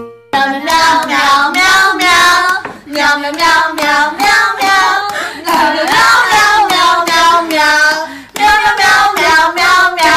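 A high voice singing loudly in short, quavering notes, beginning a moment in, with a brief break near the end.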